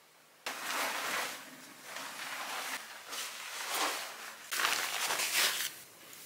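A duvet rustling and swishing as it is shaken out and spread over a bed, in about four long swishes.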